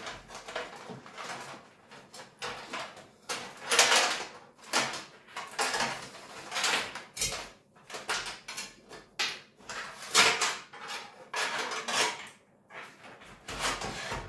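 Hands working inside a desktop PC case: irregular clicks, knocks and light metallic clatter of parts, connectors and cables being handled, with louder knocks about four and ten seconds in.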